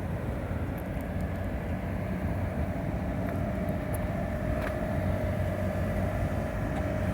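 Steady street traffic rumble, with a vehicle's engine drone coming in about three seconds in and holding steady.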